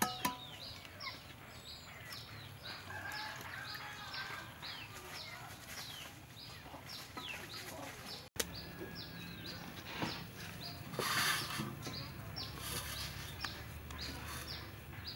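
Bird chirping over and over: short high notes that fall in pitch, about two or three a second, over a low steady hum, with a couple of brief rustles near the end.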